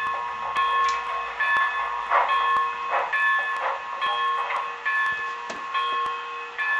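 HO scale 0-8-0 steam switcher model's onboard sound playing steam locomotive sounds: a set of steady pitched tones that cut in and out repeatedly, with a few exhaust-like puffs of hiss in the middle.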